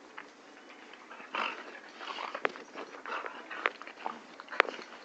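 Two puppies play-fighting at close range: dog vocal noises and scuffling, with several sharp clicks, the loudest one a little before the end.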